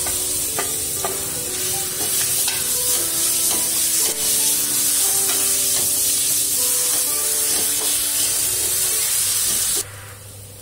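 Ground green chilli paste sizzling loudly in hot oil in a kadai as a wooden spatula scrapes it in and stirs it, with scattered clicks of the spatula on the pan. The sizzle cuts off suddenly near the end.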